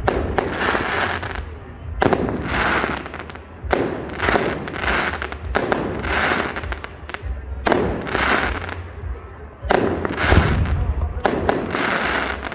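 Aerial fireworks going off: sharp bangs in quick clusters every second or two, each followed by crackling and an echoing tail.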